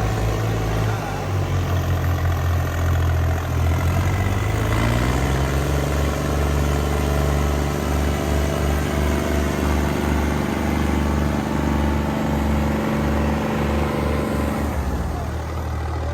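Diesel tractor engine working hard under load in a tug-of-war pull, revving up about five seconds in and then holding a steady note with a throbbing low beat. The engine note drops near the end.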